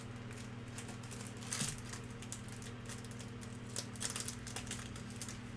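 Scattered light clicks and taps, with a short rustle about a second and a half in and a few more clicks around four seconds, over a steady electrical hum.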